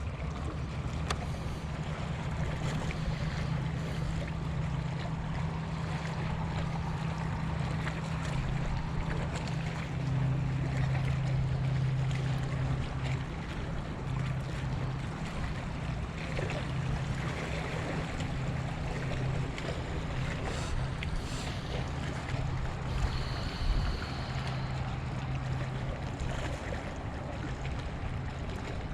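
Waves washing against the shore with wind noise on the microphone, over a steady low hum.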